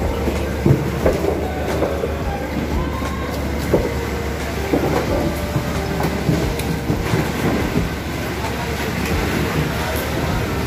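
A fishing boat's engine running with a steady low drone, under irregular knocks and clatter of fish and plastic tubs being handled during unloading, with scattered voices.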